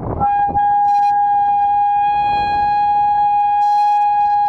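A group of megaphones blaring one loud, steady high tone together. It starts just after the beginning and holds at a single pitch.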